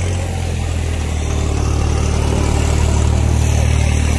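Solis 5515 tractor's diesel engine running steadily and hard under the load of a harrow dragged through dry soil.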